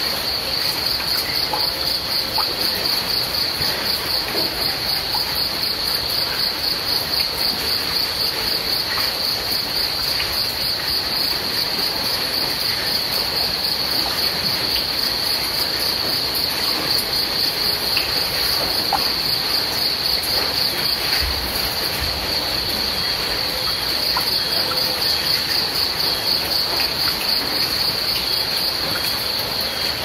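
Crickets chirping in a continuous, fast-pulsing trill held at one high pitch, with a thinner, higher hiss of more insects above it.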